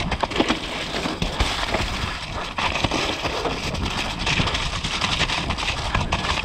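Mountain bike riding down a wet, muddy dirt trail, heard on board: tyre noise over the mud with a constant clatter of quick knocks and rattles from the bike on rough ground.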